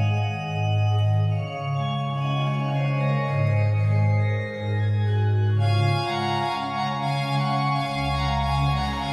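The historic early-17th-century Liège pipe organ at Mortroux playing sustained chords over a stepping bass line. The upper voices turn brighter about six seconds in, and a deep bass note enters near the end.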